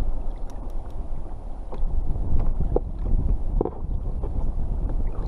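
Steady wind buffeting the microphone on open water, a dense low rumble, with a few faint light clicks and knocks from handling the fishing rig and bait.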